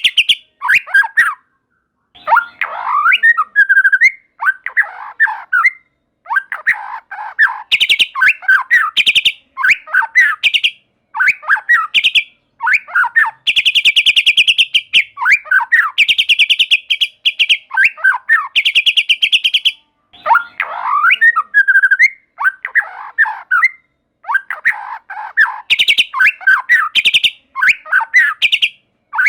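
White-rumped shama singing loud, varied phrases of whistled and chattering notes, with fast rattling trills between short pauses.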